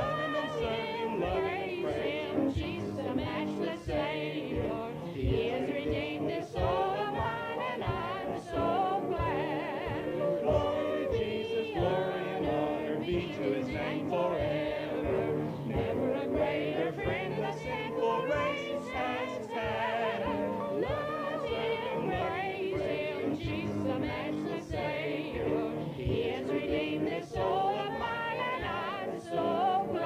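Church congregation singing a hymn with instrumental accompaniment. The voices waver with vibrato over a regular beat of struck notes.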